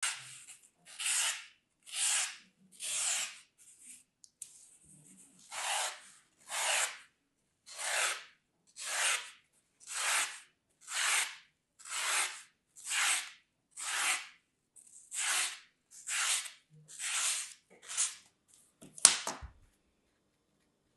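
Dry green floral foam being scored with a blade: rhythmic raspy scrapes about once a second, each stroke about half a second long, with a short pause near the start. A single sharp click about 19 seconds in, then the scraping stops.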